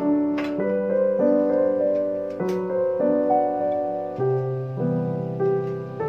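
Background music: a slow, gentle solo piano piece moving through sustained chords.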